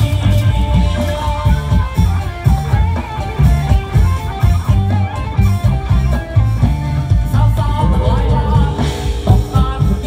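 Background music with guitar and a steady beat.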